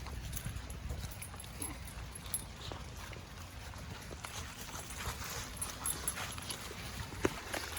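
Footsteps of a walker and a Newfoundland dog on a wet wooded trail in light rain, with scattered taps and clicks and a sharp click near the end. A low rumble on the microphone is strongest in the first couple of seconds.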